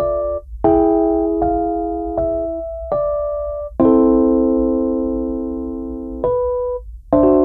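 Background music: a slow electric piano playing chords and single notes, each struck and left to ring and fade, with one chord held for about two and a half seconds in the middle.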